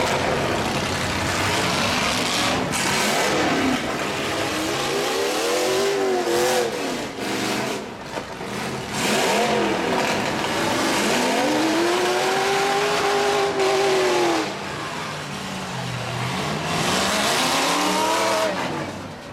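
Demolition-derby pickup truck engines revving hard, the pitch rising and falling again several times as the trucks push and ram, with a few sharp crashes of metal on metal.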